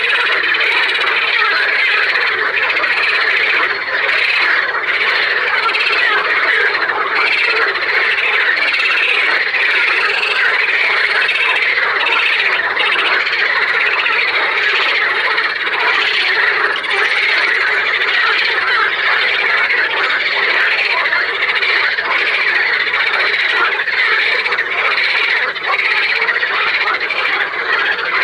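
A dense chorus of many frogs calling at once, their croaking calls overlapping into a steady, unbroken din.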